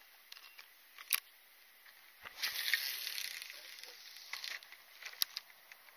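Water splashing for about two seconds as a common snook is released back into the water, with a sharp click a second before and another near the end.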